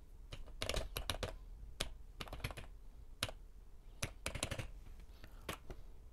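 Keys being pressed on a TRS-80 Model 100 keyboard: light, irregular clicks, some single and some in quick runs of several, with short pauses between.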